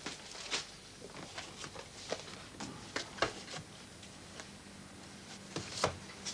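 Small cardboard clock boxes being handled and set down one after another on a chipboard shelf: irregular light knocks and taps, with a cluster of them about three seconds in and another near the end.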